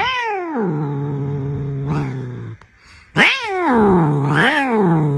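A cat growling low and yowling. A long falling yowl comes at the start over the growl. After a short break, two wavering, drawn-out yowls follow.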